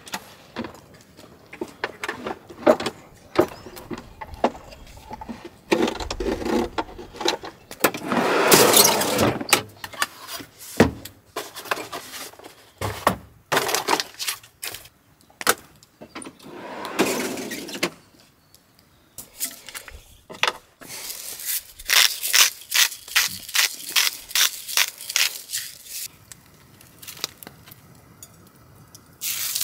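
Clatter and rustling of food packages and cooking gear being handled, with a quick run of sharp clicks in the second half. Just before the end a raw steak is laid in a hot cast iron skillet and starts to sizzle.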